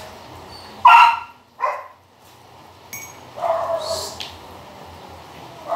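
Short, high-pitched dog cries: two quick yelps about a second in, then a longer cry near the middle.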